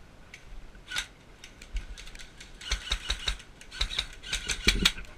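Sharp mechanical clicks and rattles from airsoft gear: a few single clicks, then quick runs of clicking about three and four to five seconds in.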